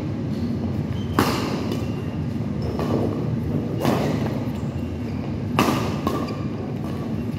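Badminton rackets striking a shuttlecock during a doubles rally: about five sharp smacks, irregularly spaced a second or so apart, echoing in a large hall over a steady low hum.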